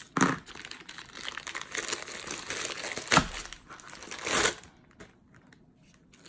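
Packaging crinkling and rustling as a microphone is pulled out of its box and wrapping, with two louder rustles about three and four seconds in before it goes quiet near the end.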